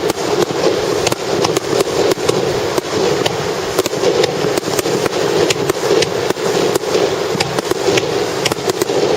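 Starmine fireworks barrage heard from a few hundred metres off: a rapid, unbroken string of bangs and crackles over a steady rumble.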